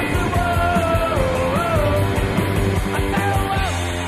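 Rock music soundtrack: a loud, steady band with a melody of held notes that slide from one pitch to the next.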